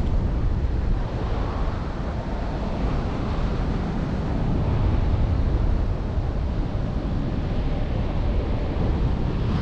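Wind rushing over a GoPro's microphone in paragliding flight: a steady, low buffeting roar.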